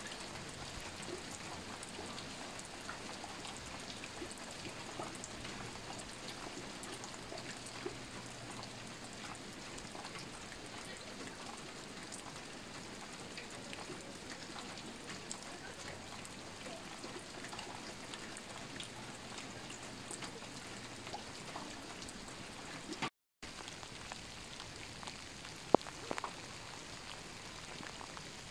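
Steady rain falling, an even hiss dotted with many small drop taps. The sound cuts out for a moment a little past the 23-second mark, and there is one sharp tap a few seconds before the end.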